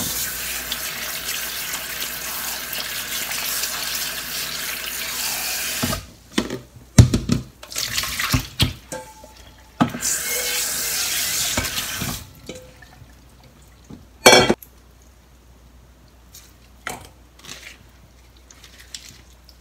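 Kitchen tap running into the sink as salted cucumber slices are rinsed, for about six seconds, then a few knocks and handling noises and a second short run of water. A single sharp knock comes about two-thirds of the way through, and it is quieter after that.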